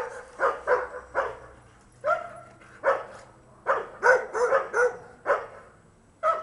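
A dog barking repeatedly: about a dozen short barks in uneven clusters, with a brief pause near the middle.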